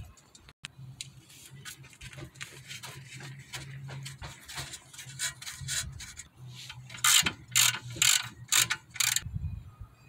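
Ratchet wrench clicking as the nut on the lower control arm's ball joint is backed off. A run of louder, sharper clicks comes about seven seconds in.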